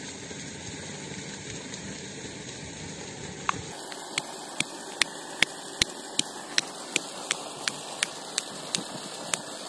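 Stone pestle pounding peeled ginger and garlic in a small stone mortar, crushing them to a paste: sharp, evenly spaced knocks about two and a half a second, starting about three and a half seconds in. Before that, only a faint steady hiss.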